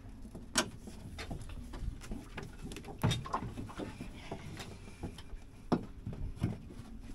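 Irregular knocks and clicks, about eight in all, as a rope tied to an aluminium tinny is hauled in by hand.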